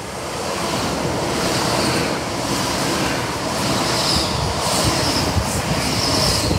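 GWR Hitachi Intercity Express Train passing the platform at speed without stopping: a loud rush of air with wheel and rail noise, swelling over the first second as the front of the train arrives.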